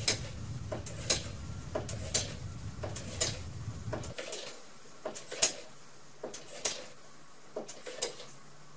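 Hand air pump being worked to pressurise a plastic bottle, with a sharp click at each stroke about once a second.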